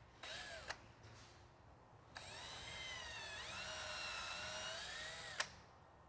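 Porter-Cable cordless drill with a 3/16-inch bit pre-drilling screw holes through masking tape into a boat's gel-coated transom. A brief burst of the motor whine comes first, then a longer run of about three seconds whose pitch dips and recovers, ending with a click.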